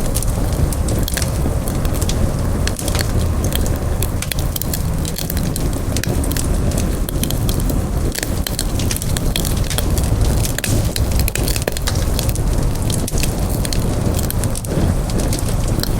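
Campfire burning with a steady low rumble and frequent sharp crackles and pops of burning wood.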